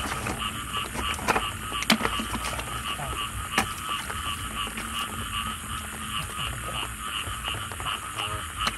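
A chorus of frogs calling in the wet field, a steady run of short repeated calls about three a second, over a constant high hiss. A few sharp knocks or splashes stand out, the loudest about two seconds in.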